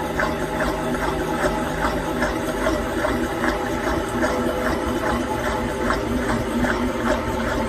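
Front-loading washing machine on a 900 rpm spin cycle: the drum and motor run with a steady hum, and a regular ticking comes about two or three times a second.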